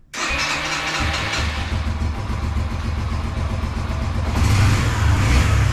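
Yamaha YBR125's single-cylinder four-stroke engine starting without the choke while partly warm, catching about a second in and then running steadily. It gets louder from about four seconds in.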